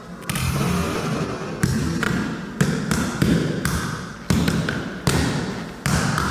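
Hands smacking light-up reaction buttons in a hit-counting game: about ten sharp slaps in quick, irregular succession, each dying away quickly.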